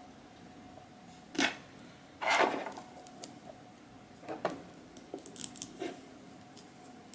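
Small plastic Nendoroid figure parts being handled and pressed together in the fingers: a few short light clicks and rustles, the loudest about two seconds in.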